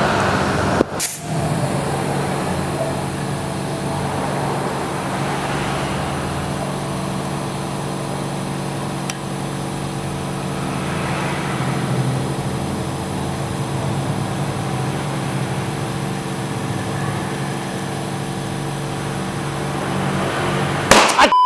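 Compressed air hissing steadily through a compressor hose into a tubeless tyre on a spoked supermoto rim, inflating it to seat the bead, with a steady machine hum beneath. Near the end a sudden loud sound, and then it cuts off abruptly.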